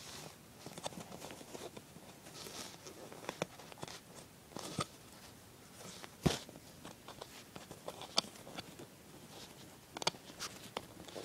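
Soft rustling and scattered clicks of fingers working fabric loops over and under on a potholder loom, with a sharper knock about six seconds in.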